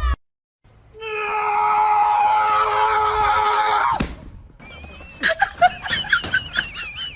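A person's long, loud scream on one held pitch, starting about a second in and cut off sharply some three seconds later. High, wavering squeaky cries follow near the end.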